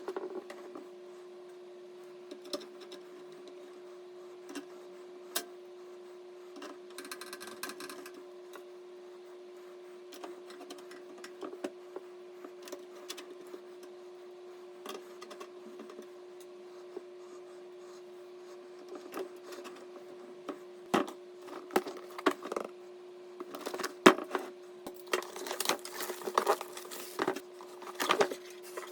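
Handling noise: scattered clicks, taps and light rattles of small hard parts being handled, growing busier and louder over the last third, over a steady low hum.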